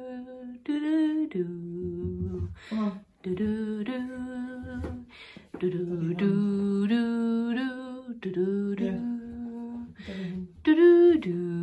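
A voice humming a slow wordless tune, holding each note and stepping up and down between them, with short breaks.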